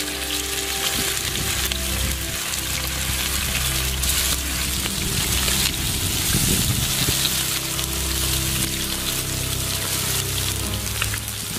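Marinated chicken pieces sizzling as they deep-fry in hot vegetable oil in a large karahi, a steady, dense crackle throughout.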